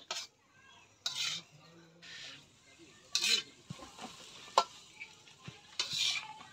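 Metal spatula stir-frying fenugreek leaves in a wok: scraping, sizzling strokes about once a second, with a few sharp taps of the spatula against the pan midway.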